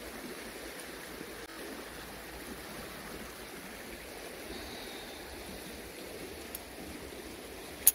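Steady rushing of a nearby stream, with a single sharp click near the end.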